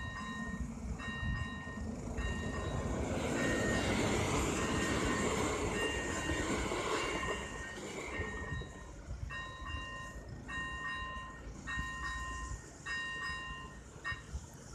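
A ZV-01 electronic level-crossing bell rings a repeating multi-tone chime about once a second. A České dráhy electric train passes over the crossing from about two to eight seconds in, its rumble loudest about four seconds in. The bell stops near the end as the crossing clears.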